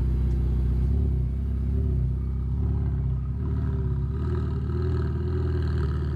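Ferrari sports car's engine running at idle: a steady low engine note whose pitch wavers slightly midway.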